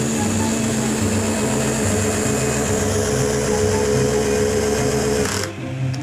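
Cordless drill running steadily as it bores a hole through a wooden rail, then stopping suddenly near the end.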